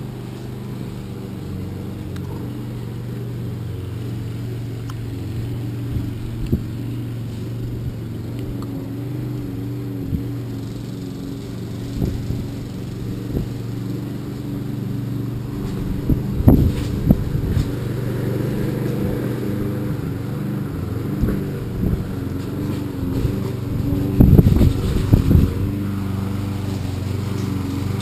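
A motor hums steadily, with occasional knocks and rustles over it, louder in two clusters partway through and near the end.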